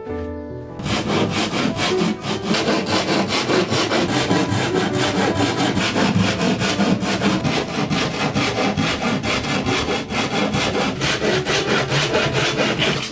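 Hand saw cutting through a sheet of OSB board in fast, even back-and-forth strokes, starting about a second in.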